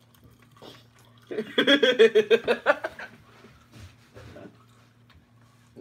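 A boy laughing in a quick burst of pulsed laughs, starting just over a second in and lasting about a second and a half. A faint steady hum runs underneath.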